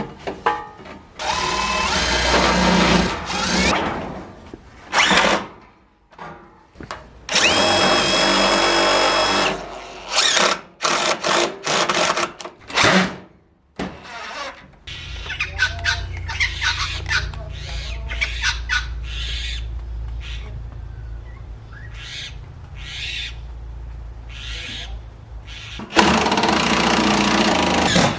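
A power drill run in repeated bursts, its motor whining and rising in pitch on the longer runs, with a string of short trigger pulses; a quieter low hum with light clicks follows before the drill runs again near the end.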